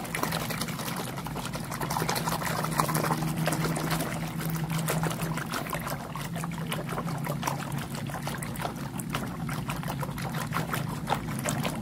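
Soapy water sloshing and splashing in a plastic basin as a hand scrubs a plastic toy airplane under the surface, a continuous run of small quick splashes.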